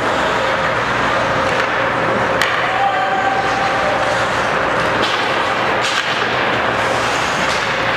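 Ice hockey game sound in an indoor rink: a steady wash of skates on ice and spectator noise, with a couple of sharp knocks of play, one a few seconds in and another near the end.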